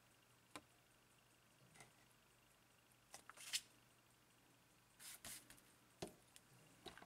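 Faint handling noises: a few soft rustles and light clicks at irregular moments as a small metal clock platform escapement and a paper card are moved about. A small click about six seconds in comes as the escapement is set down on the table.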